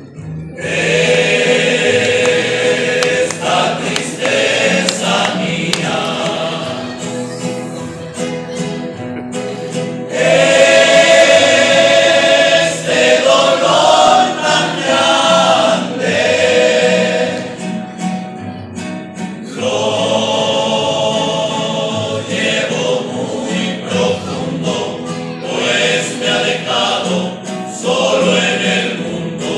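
A rondalla's male voices singing in close harmony in long held phrases, accompanied by strummed guitars and a double bass.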